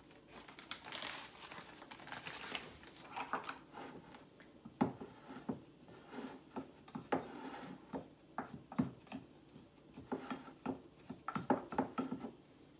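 Plastic bag of brown sugar crinkling as the sugar is shaken out, then a series of small clicks and scrapes of a utensil against a glass measuring cup as the brown sugar is packed down.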